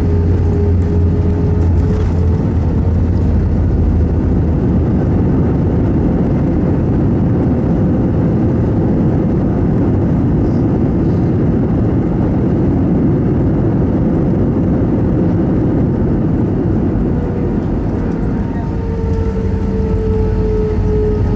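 Airbus A319 cabin noise during the landing rollout: a steady, loud roar of engines and rushing air with an engine whine, easing slightly and then growing again near the end.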